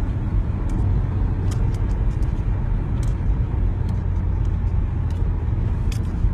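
Road and engine noise heard inside a moving car's cabin: a steady low rumble, with a few faint clicks.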